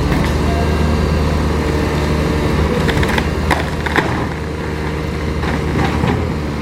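Cat 320C excavator's diesel engine running steadily, with several sharp knocks or cracks between about three and six seconds in.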